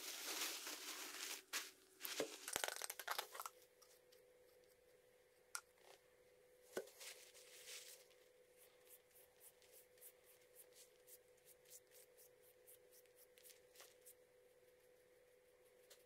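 Paper towel being pulled out, torn and crinkled for the first three seconds or so. Then faint, quick ticking and dabbing of a small brush working a finish onto the draw knife's wooden handle.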